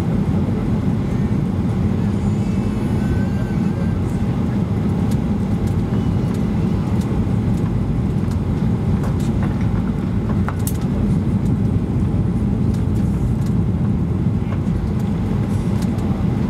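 Steady low roar inside the cabin of a Boeing 737-800 on final approach with flaps extended: its CFM56 engines and the airflow over the airframe. A few faint clicks and rattles come through near the middle.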